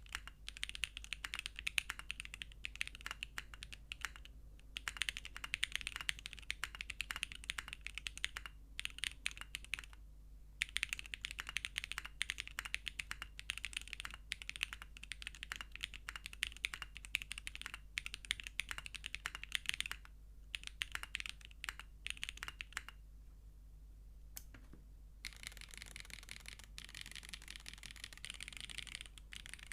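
Typing on a Geonworks F1-8X v2 mechanical keyboard with SWK x Kezewa Typewriter switches, a polypropylene plate and GMK keycaps: fast, continuous key clicks with a few short breaks. After a pause of about two seconds near the end, a denser, quicker run of key presses follows.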